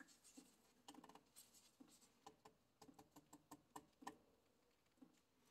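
Near silence, with faint, scattered small clicks and scratches of a gloved hand twisting the plastic fuel filter bowl on a Kubota tractor engine to seat it.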